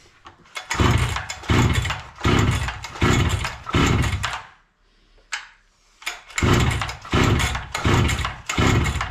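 Husqvarna 61 two-stroke chainsaw being pull-started: about ten quick pulls of the recoil starter cord in two runs with a pause between, each pull a short whirr of the engine turning over. The engine does not catch.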